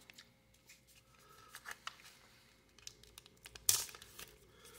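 Faint rustling and crinkling of a Topps Archives baseball card pack wrapper being handled and torn open, with one short, louder crinkle a little before the end.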